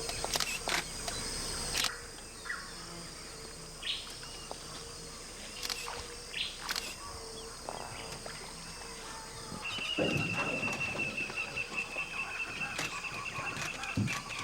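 Outdoor marsh ambience with a steady high-pitched hum and scattered clicks. About two-thirds of the way through, a bird starts a fast, even trill that carries on to the end, with a couple of low thumps.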